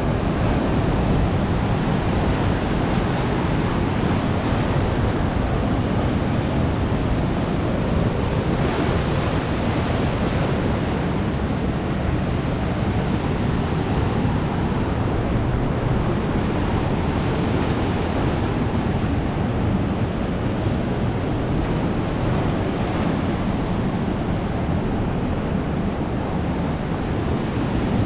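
Rough sea surf breaking and washing over a rocky shore: a steady, unbroken rush of waves.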